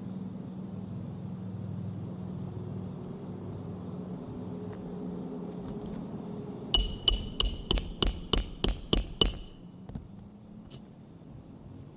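A hammer driving a roofing nail into shingles: about ten quick blows, a little over three a second, each with a short metallic ring, starting about halfway through.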